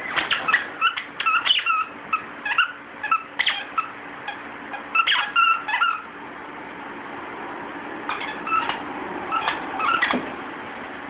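Squeaker in a plush dog toy squeaked over and over in quick, short, high squeaks as a dog chews it, stopping for a couple of seconds about six seconds in, then a few more squeaks near the end.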